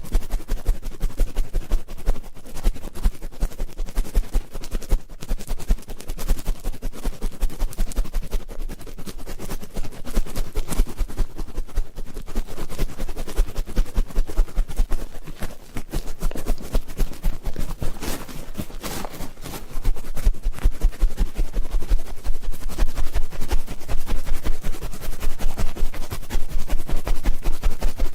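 Ear-cleaning ASMR: an ear-cleaning tool scraping and rubbing close to the microphone in a dense run of fast, scratchy strokes, with soft low thumps beneath. It gets louder about two-thirds of the way in.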